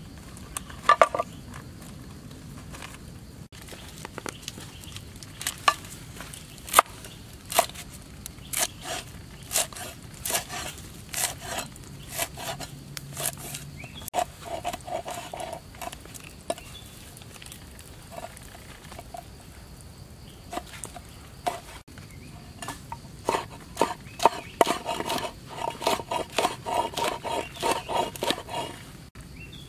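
Cleaver chopping green leaves and then red chili peppers on a wooden board: a series of sharp knocks of the blade on the wood, irregular at first, then fast and close together near the end.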